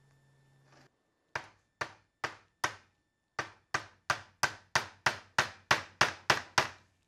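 Hand hammer striking a tool wedged into the end of a steel roll pin held in a bench vise, to flare the pin open. Four sharp metallic blows, a short pause, then eleven quicker blows about three a second, each ringing briefly.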